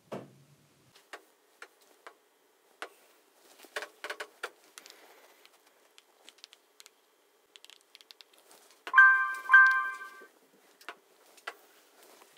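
Scattered light clicks and taps, then about nine seconds in a short electronic chime of several steady bright tones, struck twice about half a second apart and dying away within a second or so.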